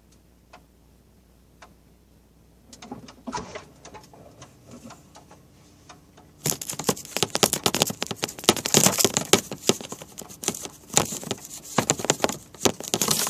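A few scattered faint clicks and light rustles. About six and a half seconds in, a dense run of rapid clicking, rustling and scraping begins and keeps going: objects being handled and rubbed.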